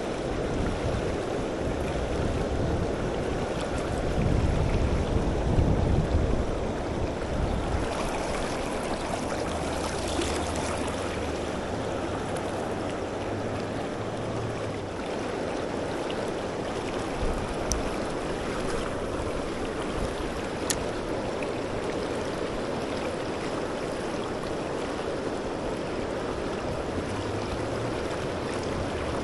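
Creek running high after heavy rain: a steady, even rush of flowing water. About four seconds in, a low rumble swells for about two seconds.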